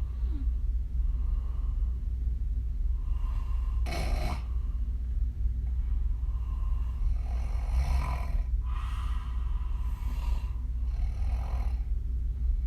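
A woman snoring through her open mouth, her lips blowing out on the breaths. Several snoring breaths come a few seconds apart, the sharpest about four seconds in, over a steady low hum.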